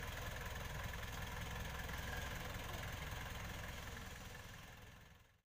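Daihatsu Taft F50 4x4's engine running at low, steady revs as the jeep crawls up a slope off-road. It fades from about four seconds in and cuts off abruptly just before the end.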